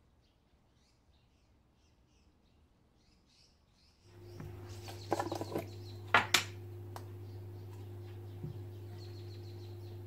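Faint bird chirps, then about four seconds in a steady low hum begins. A metal spoon clinks and scrapes against a jar, with a rattle of small clicks around five seconds and two sharp clinks just after six seconds.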